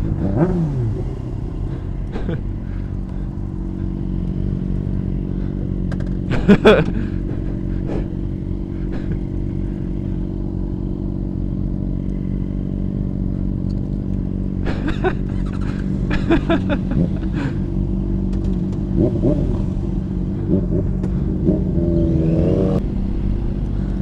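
Motorcycle engines idling at a standstill as a steady low hum, with a short loud burst about six and a half seconds in.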